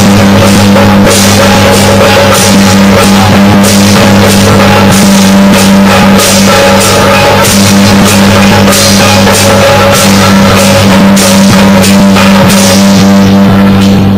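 Loud music with drums and a steady beat.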